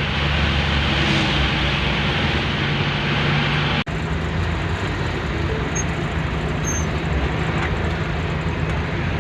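Steady engine and road noise of a vehicle being driven, with an abrupt break about four seconds in where the recording cuts and picks up again.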